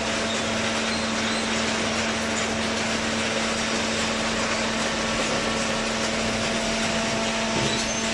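Baler machine running: a steady mechanical noise with an even hum.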